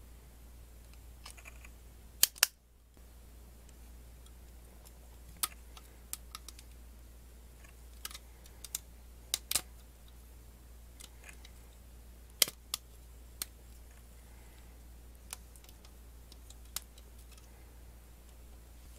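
Plastic LEGO Technic parts clicking and snapping together as pins and beams are pushed into place by hand: sharp, irregular clicks every second or so, the loudest a close pair about two seconds in, over a faint steady hum.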